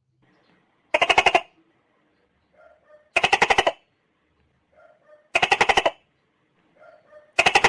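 Tokay gecko calling: four rapid, rattling calls about two seconds apart, each about half a second long, the later ones led in by a softer short note.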